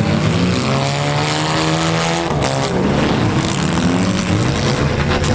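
Compact demolition derby cars' engines running and revving together, their pitch rising and falling.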